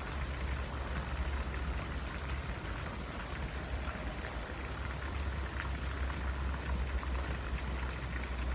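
Steady low wind rumble on the microphone over open-air ambience, with a faint steady high-pitched tone.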